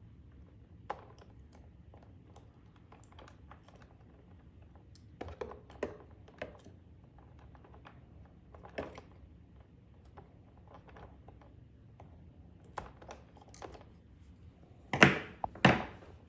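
Scattered small clicks and taps from needle-nose pliers and plastic parts as wires are worked loose from a pressure washer's switch box, with two louder knocks near the end.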